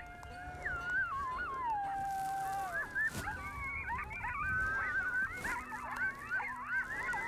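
Coyote howling: a long howl sliding down in pitch, then from about three seconds in a group of coyotes breaking into a chorus of overlapping, wavering yips and howls. A single sharp knock sounds about three seconds in.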